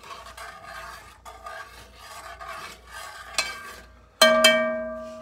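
A metal spoon stirring and scraping vegetables sautéing in a metal pot, with a light sizzle. About four seconds in, the spoon is knocked twice against the pot, which rings out and slowly fades.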